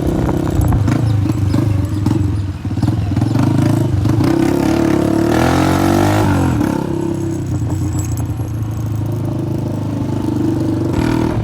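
Honda CG 125's single-cylinder four-stroke engine running loud through a burst silencer, its pitch rising and then falling sharply a little past the middle.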